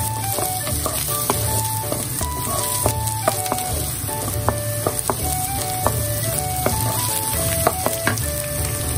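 Diced onion, carrot and egg sizzling in hot oil in a frying pan, stirred and scraped with a wooden spatula that knocks against the pan now and then. A simple background tune plays under it.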